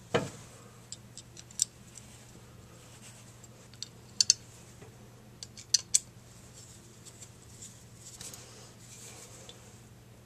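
Small metal parts and a screwdriver clicking and knocking against the alternator's front end housing: a knock right at the start, then scattered sharp clicks, two quick pairs around four and six seconds in, over a faint steady hum.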